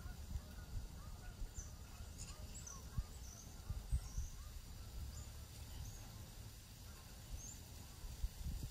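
Wild birds calling in the dawn chorus: many short, high chirps scattered throughout, with some lower calls among them. Underneath runs a steady low rumble with a few soft thumps.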